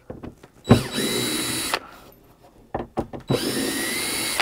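Cordless drill-driver backing Phillips screws out of a wooden crate lid: two runs of about a second each, each starting with a rising whine as the motor spins up, with a few sharp clicks between them.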